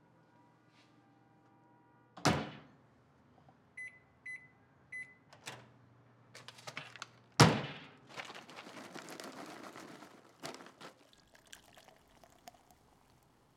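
Microwave oven sequence: a loud thunk about two seconds in, three short high keypad beeps, a low hum, then another loud thunk. After that, cola is poured into a glass for a couple of seconds, fizzing, followed by a few light clicks.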